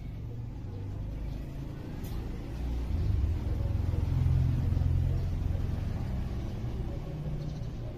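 Low rumble of a passing motor vehicle, growing louder about three seconds in and easing off toward the end.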